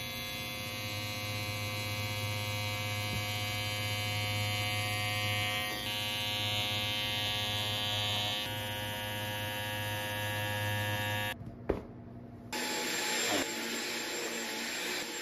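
Electric trimmer buzzing steadily as it shears the pile of a tufted rug, its pitch shifting slightly as it cuts. About eleven seconds in the buzz cuts off, a click follows, and then a steady rushing noise.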